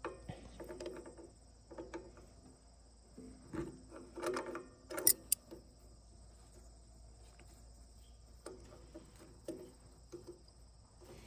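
Hand tools and metal parts being handled on a tractor carburetor: scattered small clicks, knocks and rattles, with a sharper clank about five seconds in.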